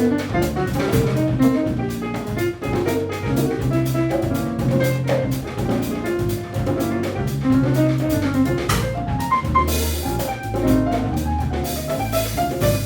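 Afro-Cuban Latin jazz band playing live: a walking bass line and piano notes over drum kit and Latin percussion, with cymbal washes about ten and twelve seconds in.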